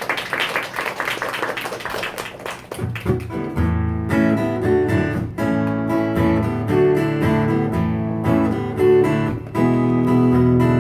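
Live acoustic guitar playing a song's intro, strummed chords over a bass line, starting about three seconds in after a short noisy patter.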